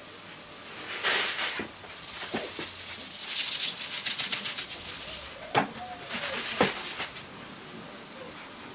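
Dry rustling and scraping in three spells, the longest with a fast crackling rattle, and two sharp knocks about a second apart in the last spell.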